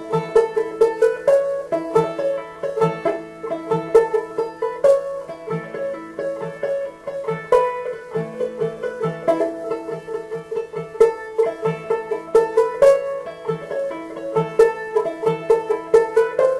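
Banjo picking: a fast, steady stream of plucked notes in a bluegrass-style roll.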